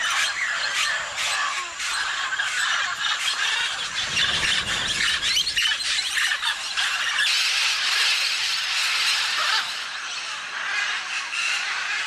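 A flock of mealy parrots squawking and screeching all at once, a dense, unbroken chorus of harsh overlapping calls. A short low rushing sound comes about four seconds in.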